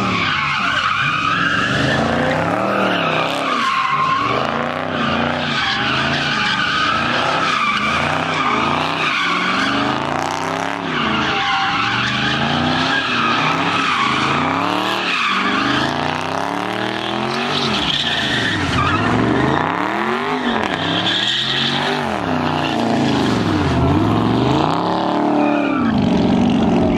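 Dodge Charger doing donuts: the engine revs up and down over and over as the spinning rear tyres squeal and skid on the asphalt, its note rising and falling every second or two.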